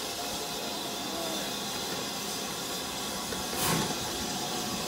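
BR Standard Class 5 steam locomotive standing with steam up, hissing steadily, with a brief louder rush of steam about three and a half seconds in.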